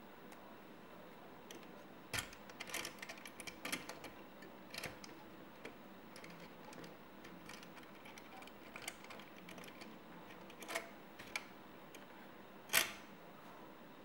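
Small clicks and taps of a plastic buckle clasp being handled and fitted onto a paracord jig's metal tightening rod: a run of clicks about two to four seconds in, a few scattered ones after, and the loudest single click near the end.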